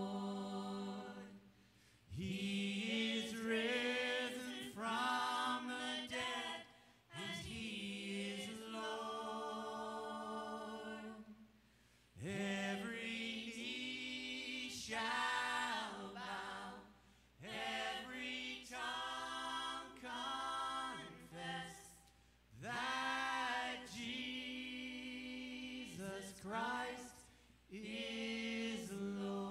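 Unaccompanied singing without instruments, in phrases a few seconds long with long held notes and short pauses for breath between them.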